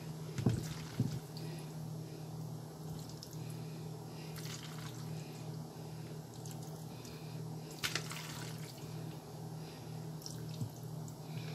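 Steady low hum with a few light clicks and knocks scattered through it, the loudest about half a second in and another near eight seconds.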